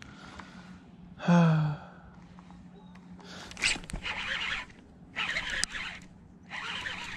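A short voiced exclamation from the angler as a bass hits the jig. Then three bursts of rustling and reeling noise, each about a second long, as the fish is fought on a baitcasting rod.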